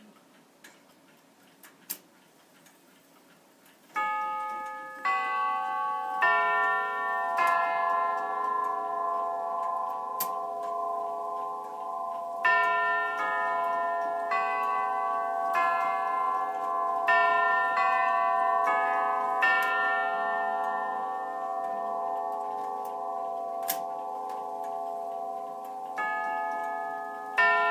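Jauch tubular-chime clock movement with five chime tubes, its hammers striking a chime tune in phrases of four notes with pauses between them, each tube ringing on under the next. A few faint clicks come before the chime starts about four seconds in.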